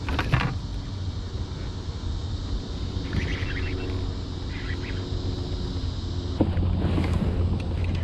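Fishing kayak under way on calm water: a steady low rumble with wind on the microphone, and a few small clicks and rattles from the boat or gear, about three seconds in and again near the end.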